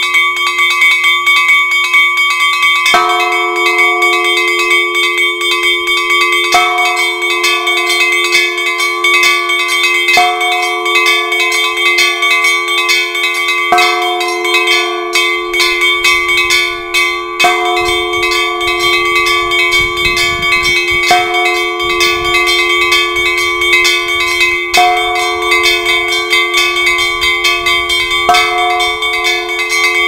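Home-made Orthodox church bell set rung together: a larger bell struck about every three and a half seconds, its hum carrying between strikes, over a rapid, unbroken pattern of strokes on smaller bells.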